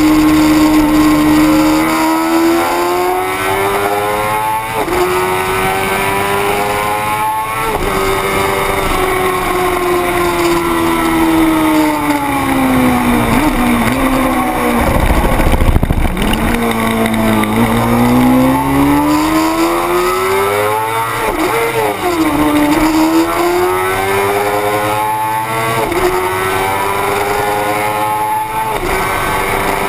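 600 cc racing motorcycle engine at race pace. It revs up and shifts up through the gears, each shift a sudden drop in pitch, then winds down over several seconds about halfway through. After that it pulls hard up through the gears again, with quick shifts near the end.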